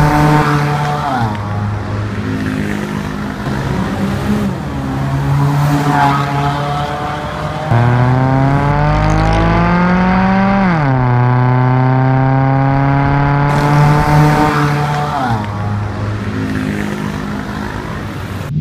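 2011 Suzuki Swift running through an aftermarket axle-back exhaust with dual exits while driving. The exhaust note climbs with the revs and drops sharply at each gearshift: about a second in, near the middle after a long pull, and again a few seconds later. It holds a steady drone between shifts.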